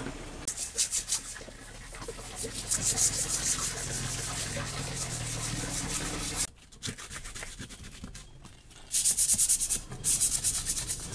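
A metal folding-bicycle frame being sanded by hand: runs of quick back-and-forth rubbing strokes, with short pauses between the runs.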